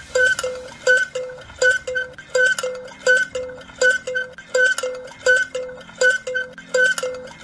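Hand-cranked tin toy sounding a short tone at the same pitch over and over as the crank turns, about two to three times a second in a steady rhythm.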